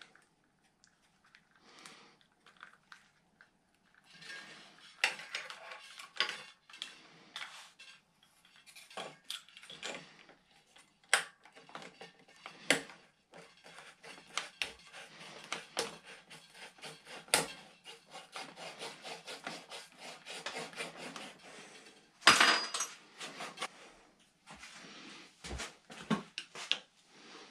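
Hand work on a bicycle handlebar and road lever: irregular clicks, scrapes and rubbing of metal tools and small parts, with one sharp clatter about 22 seconds in.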